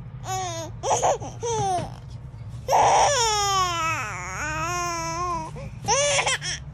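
A baby vocalising happily in high-pitched squeals and coos: a few short calls, then one long squeal from about three seconds in that dips and rises in pitch, and two more short ones near the end.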